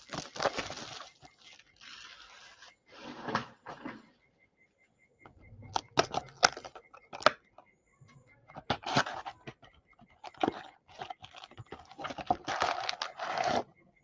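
Cellophane shrink-wrap crinkling as it is torn off a trading-card hobby box. Then sharp clicks and taps of the cardboard box being handled and opened, and rustling of foil card packs as they are pulled out and stacked, loudest near the end.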